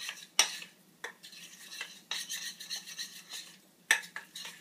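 Metal spoon stirring and scraping a thick carob and cocoa-butter mixture around a small metal saucepan, in a series of irregular scraping strokes.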